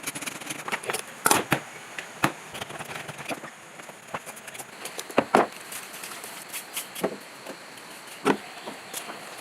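Irregular sharp clicks and knocks of parts and tools being handled during hand repair work, a few a second, with louder knocks about a second in, past five seconds and past eight seconds.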